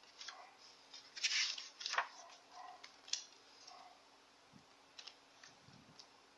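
Pages of a hardback book being turned by hand: paper rustling and flicking, loudest about a second in, with sharp page clicks near two and three seconds, then fainter soft ticks of paper.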